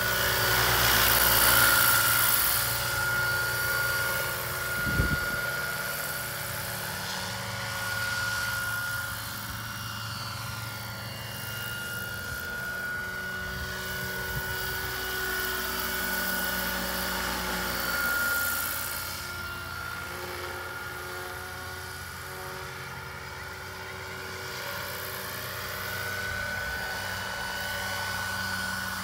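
A 1/5 scale electric radio-controlled Saunders-Roe Skeeter helicopter in flight, its electric motor giving a steady high whine over the noise of the three-bladed rotor. The pitch sweeps up and down in the middle as it flies past. A brief knock comes about five seconds in.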